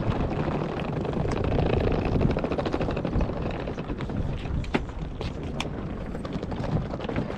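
Steady low rumble beside a parked coach bus, with footsteps and rolling suitcase wheels on paving stones. Sharp footstep clicks come close by from about four seconds in.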